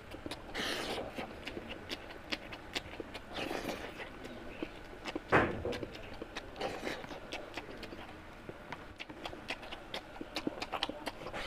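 Close-up mouth sounds of a person chewing mutton curry and rice: a run of quick wet clicks and lip smacks. A few louder noisy bursts come in between, the loudest about five seconds in.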